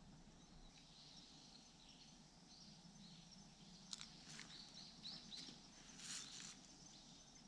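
Faint quiet outdoor ambience with a few soft, high bird chirps in the middle, and a couple of light clicks about four seconds in.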